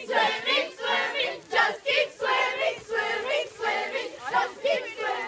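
A group of young voices chanting a marching cadence in unison, about two beats a second.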